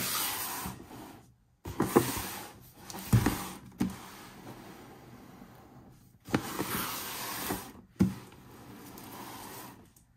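Large cardboard toy box being slid across a tabletop and handled, with scraping and rubbing in several spells of a second or two and a few knocks against the table.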